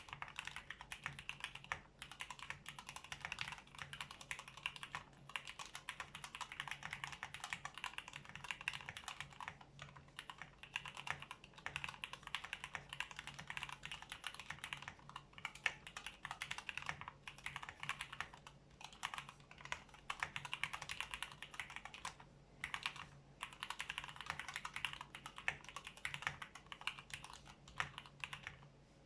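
Fast, continuous typing on a Tofu65 mechanical keyboard with a brass plate and stock, unlubricated Cherry MX Black Hyperglide linear switches, with a few brief pauses; it stops at the very end. The owner says these stock switches are scratchy and have noticeable spring ping.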